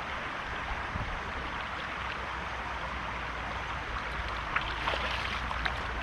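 Small creek's running water: a steady rushing, with a few faint ticks or light splashes near the end.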